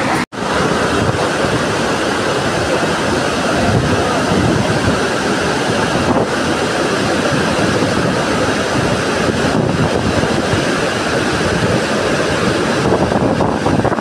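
Steady rushing of a large waterfall in full flow: a dense, even noise with no pauses. The sound cuts out for an instant about a quarter second in.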